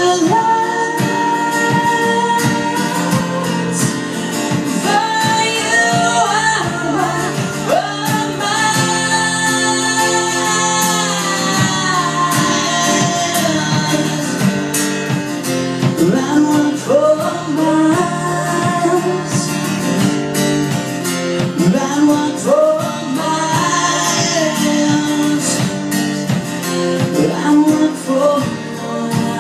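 A song: a singer's voice holds and slides between long notes over guitar accompaniment.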